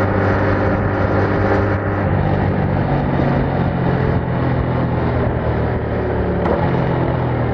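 Yamaha MT-07's parallel-twin engine running through its stock exhaust while riding, at a fairly steady engine speed, its pitch stepping slightly up and down a few times.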